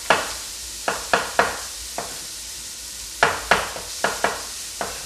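Chef's knife slicing baby portobello mushrooms on a wooden cutting board: about eleven sharp knocks of the blade on the board, in two runs with a short pause between. Fennel caramelizing in a pot sizzles steadily underneath.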